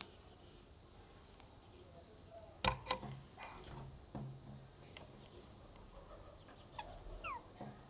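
Faint bird calls: scattered short calls, with a couple of sharp knocks about two and a half seconds in and a quick falling chirp near the end.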